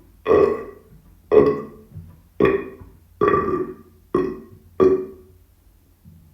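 A person burping six times in a row, about one a second, each a short belch that starts abruptly and trails off.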